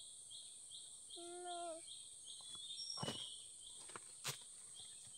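Forest background of a steady high insect drone and a high chirp repeating about three times a second. About a second in, a small child gives a short whimper. Dry leaves and twigs crackle a couple of times near the middle as she shifts on the forest floor.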